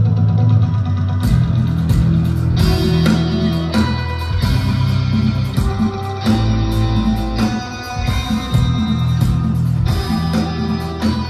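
Live instrumental progressive metal: two eight-string electric guitars playing a heavy, low riff, with the drum kit coming in about a second in.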